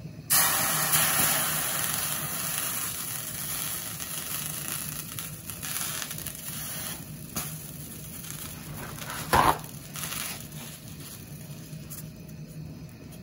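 Water hitting a preheating stainless steel pan and sizzling: a sudden loud hiss that fades slowly over several seconds, with a brief louder sizzle about nine seconds in. The beading drops are the water test that a stainless pan is hot enough.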